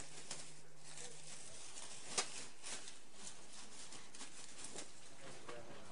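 Faint rustling and light knocks of clothes and belongings being handled over a steady hiss, with one sharp click about two seconds in.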